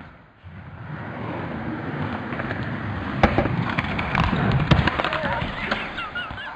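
Skateboard wheels rolling on the park floor, with sharp cracks of the board popping and landing about three seconds in and again a second and a half later. Voices shout near the end.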